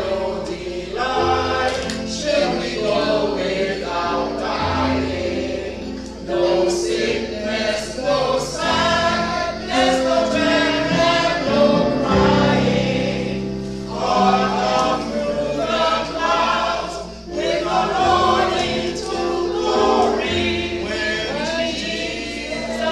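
Choir singing a gospel hymn.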